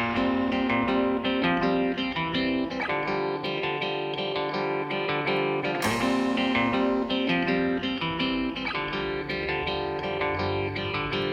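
Background music: a plucked guitar picking out a melody in a steady run of notes.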